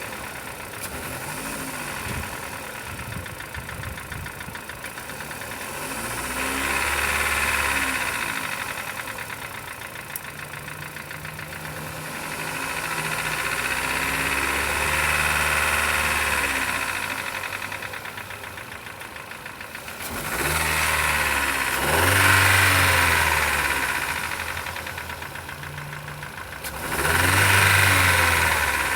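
2014 Chevrolet Cobalt II engine running with a knock, revved up and let back down four times. The knock comes from the connecting rods: on teardown the small-end bushings were burnt through and the piston pins had play, worst in the fourth cylinder.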